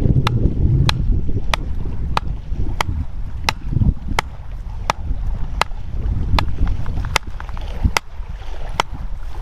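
Repeated chopping strikes on wood, about one and a half sharp knocks a second in a steady rhythm, over wind rumbling on the microphone.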